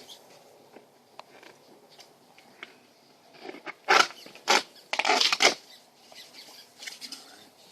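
Vinyl siding panel being handled and pried loose: faint small clicks, then a few sharp plastic clacks and a short scraping rattle about four to five and a half seconds in.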